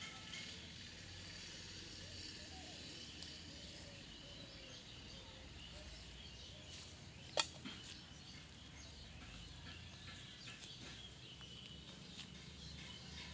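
Faint rural outdoor ambience: high, thin chirping over a low rumble, with one sharp click about seven seconds in.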